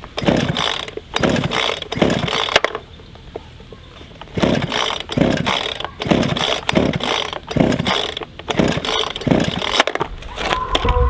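Two-stroke chainsaw being pull-started: about ten quick rips of the recoil starter cord, the engine turning over without catching. The failure to start is suspected to come from old gas.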